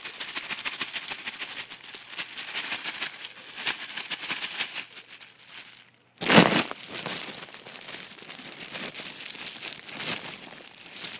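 Plastic bag crinkling and rustling as it is handled and pulled at. About six seconds in there is a brief break and a single loud thump, after which the rustling goes on more softly.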